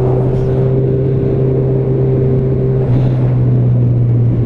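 Honda CB1000R inline-four engine with a Yoshimura exhaust running at steady revs while riding, with wind noise. The engine note shifts slightly about three seconds in.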